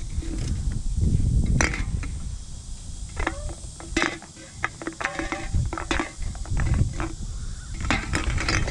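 Handling noise as an empty aluminium can is picked up off the pavement and dropped into a bag of other cans: a string of short clicks and knocks of can on can and bag rustling.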